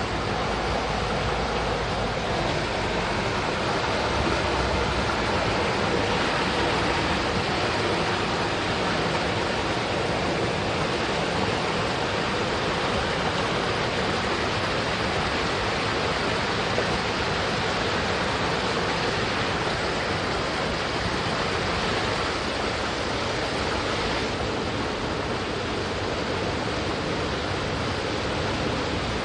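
Mountain stream rushing steadily over rocks, an even unbroken water noise.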